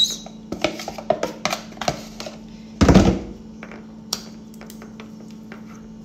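A metal spoon clicking and scraping against a glass bowl of moist couscous as it is pressed down, a quick run of small clicks in the first two seconds. About three seconds in comes one loud thump, then a single click a second later.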